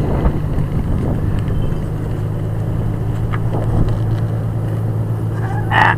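Old Detroit diesel engine of a rail hoisting machine running steadily while its line is raised. A brief, sharper sound comes near the end.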